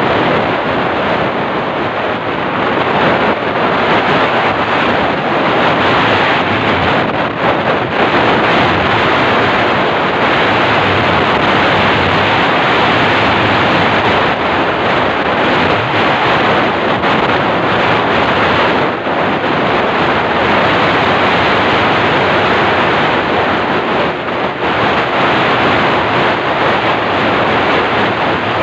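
Loud, steady wind buffeting the microphone as it moves along at road speed, a rushing noise that never lets up.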